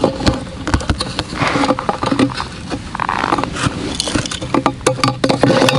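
Close handling of ice-fishing gear: a run of quick plastic clicks and knocks mixed with rustling of clothing and gear.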